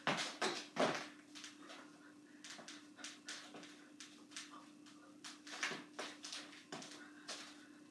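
Sneakers scuffing, squeaking and stepping on a hardwood floor while dancing, in irregular short strikes and scrapes, the loudest two in the first second.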